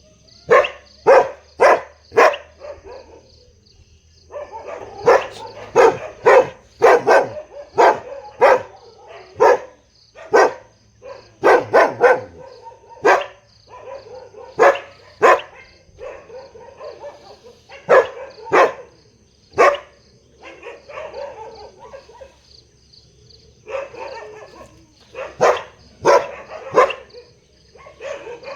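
A big dog barking loudly in runs of sharp, separate barks, often one or two a second, with short pauses between the runs. A faint steady high-pitched tone sits behind the barking.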